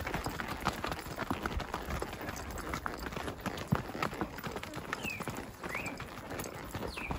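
Hooves of horses and a mule walking on a dirt trail: an irregular clip-clop of footfalls. A few short high chirps come in over the second half.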